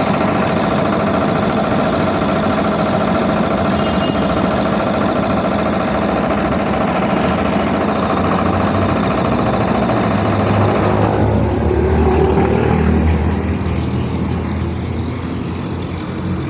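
3 HP Puma piston air compressor running steadily under test, a loud, even machine drone. About eleven seconds in its sound changes, the higher tones dropping away while a lower hum carries on.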